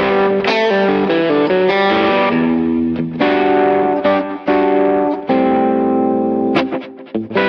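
Background music: plucked guitar playing a melody of short notes with sharp attacks.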